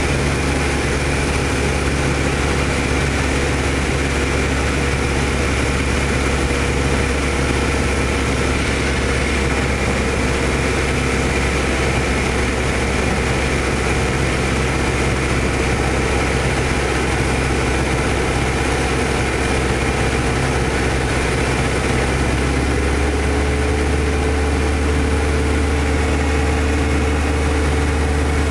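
Light single-engine airplane's engine and propeller heard from inside the cockpit, a steady loud drone in flight. About three quarters of the way through, the engine note shifts slightly lower while the low hum grows stronger.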